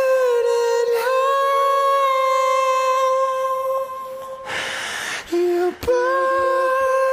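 Quiet break in a band's song: the beat and bass drop out, leaving one long held note that dips in pitch a couple of times. About four and a half seconds in, a short hissing swell and a brief lower note come in, then a click, and the held note returns.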